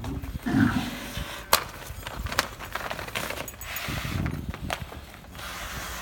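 A bull scraping at dry dirt, with rubbing and scuffing, several sharp knocks, and a short low grunt about half a second in.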